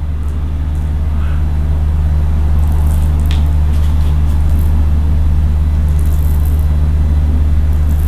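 Steady low hum, unchanging throughout, with one faint click about three seconds in.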